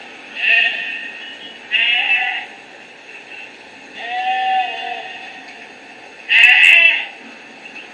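Recorded sheep bleating, four separate calls, played back through a small sound-board speaker with little low end.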